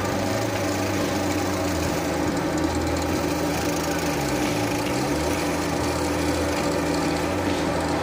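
Drill press running, its twist bit boring into plywood: a steady motor hum with a slight wavering in pitch as the bit bites and is fed down.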